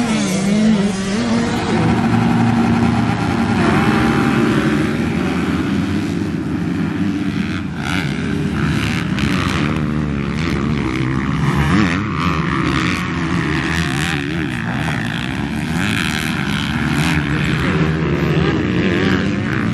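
Several motocross dirt bikes racing on the track, their engines revving hard, pitch repeatedly rising and falling as the riders work the throttle through corners and jumps.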